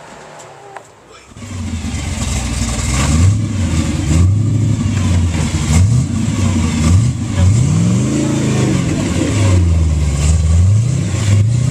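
4x4 truck engine revving up and down over and over, coming in loud about a second in, as the truck is driven through mud on an off-road trail.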